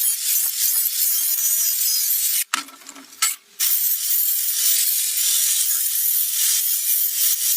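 Steady abrasive rubbing, such as sanding or scrubbing rust from a surface, with a short pause about two and a half seconds in.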